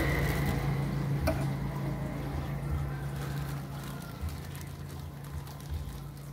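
Thin plastic bag crinkling and rustling in the hands as it is pulled over a graft and tied, over a steady low hum.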